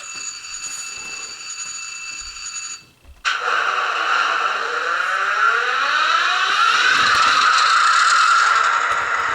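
Soundtraxx Tsunami2 decoder in an HO-scale GP38-2 playing its startup sequence through the model's small speaker. A steady electronic alarm bell rings until about three seconds in, then after a short gap the EMD prime mover sound starts suddenly and revs up, its pitch rising and settling toward idle.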